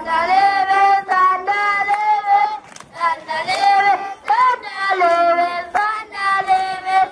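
Young children singing a song, a high child's voice carrying the tune in drawn-out notes separated by short breaks.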